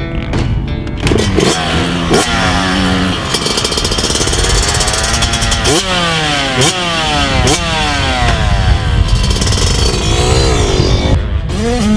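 2018 Yamaha YZ125's 125cc single-cylinder two-stroke engine ridden hard, revving up sharply again and again as it runs through the gears, with a rise and fall in pitch near the end.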